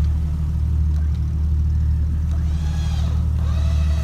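A vehicle engine running steadily, a constant low drone with no change in speed.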